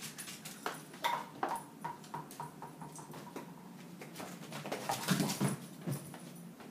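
Boston terrier puppy playing with a rubber ball: light, irregular taps and clicks of the puppy and the ball on the floor, with a short low sound from the puppy about five seconds in.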